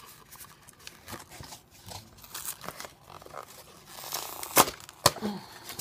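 White paper and card being handled and bent by hand, rustling and crinkling, with two sharp snaps about half a second apart near the end.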